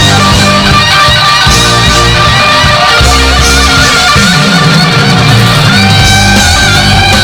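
Live rock band music: sustained electric guitar lead notes over a moving bass line, played loud.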